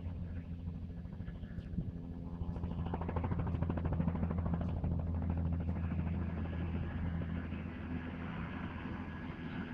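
Bell 206 LongRanger helicopter flying low, its two-bladed main rotor beating rapidly over a steady turbine hum. The sound swells about three to five seconds in, then eases slightly.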